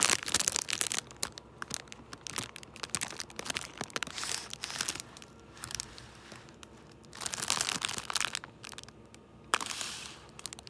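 Clear plastic packaging full of small bags of diamond-painting resin drills crinkling and rustling as it is handled, in irregular bursts of crackle with quieter gaps between.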